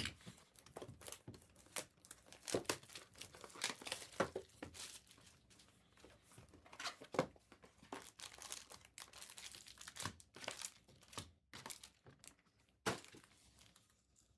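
Plastic and foil wrapping of a Topps Finest basketball card hobby box being torn open and crinkled by hand, in irregular crackling rips.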